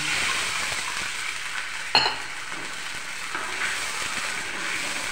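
Mustard seeds, green chillies and curry leaves sizzling in hot oil in a kadhai, with a sharp clink about two seconds in as a glass of water goes into the pan; the sizzle carries on a little quieter afterwards.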